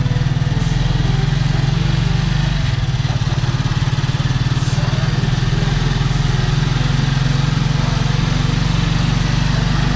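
Motorcycle engine of a motor tricycle (motorcycle with sidecar) running steadily on the move, heard from inside the sidecar close to the bike.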